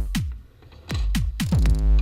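Electronic music with a drum machine: deep kick drums that drop sharply in pitch, over held bass notes, with a brief break about half a second in.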